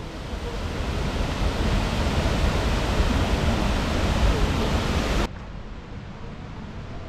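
A 25 m waterfall, Jōren Falls, rushing in a steady roar of falling water that builds over the first few seconds. About five seconds in it drops abruptly to a quieter, steady rush.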